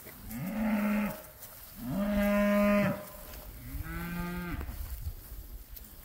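Cows mooing: three long moos of about a second each, one after another, the second the loudest and the third quieter.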